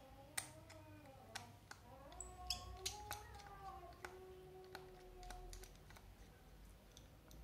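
Sparse small clicks and ticks of a precision screwdriver turning the case screws out of a Samsung B310E's plastic back, with faint wavering tones in the background.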